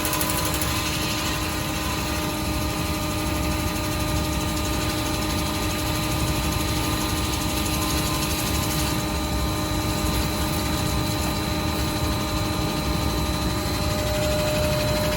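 CNC drilling special-purpose machine running: a steady mechanical hum with several held tones over a low rumble.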